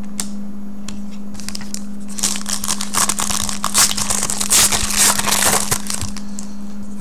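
A trading-card pack wrapper being torn open and crinkled by hand, a dense crackling from about two seconds in until about six seconds in. A steady low hum runs underneath throughout.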